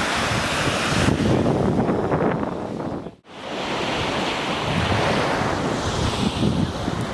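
Baltic Sea surf washing onto the beach, with wind buffeting the microphone in low, uneven gusts. The sound drops out for a moment about three seconds in.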